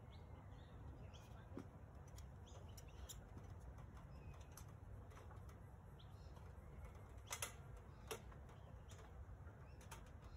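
Quiet outdoor ambience with faint bird chirps and a few light clicks and knocks, the sharpest a close pair about seven seconds in, followed by one more a moment later.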